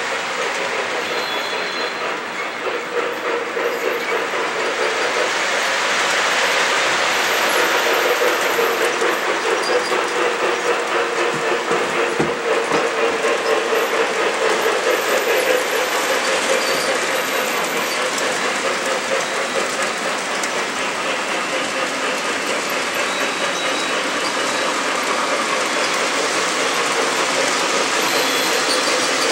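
O scale model passenger train, a K-Line New York Central Hudson pulling heavyweight Pullman cars, running past: a steady rumble of steel wheels rolling and clicking over the track. It swells and pulses in the middle as the train passes close, then eases a little.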